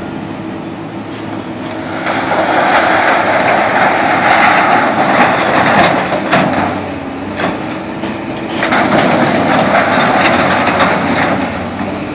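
An engine running steadily, with two louder, rougher stretches: one from about two seconds in lasting around five seconds, and a shorter one near the end.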